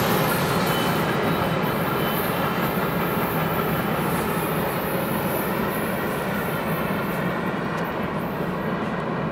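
Freight train of covered grain hoppers rolling away on the rails: a steady rumble of wheels on track that slowly fades as the tail end recedes.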